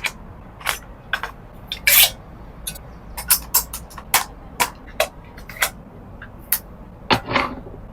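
A series of about eighteen sharp, irregularly spaced clicks and clacks from an XM177E1 airsoft replica rifle, with a louder clack about two seconds in and a doubled clack near the end.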